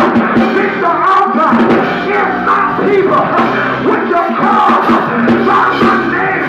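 Loud music with many voices shouting and singing over it.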